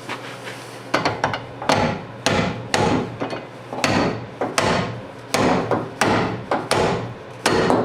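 Hammer blows knocking a door hinge pin out of a GMC Squarebody truck's door hinge. About a dozen sharp metal strikes, roughly two a second, start about a second in.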